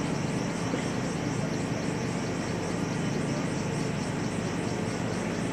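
Steady murmur of a large seated crowd, an even background noise with no single voice standing out.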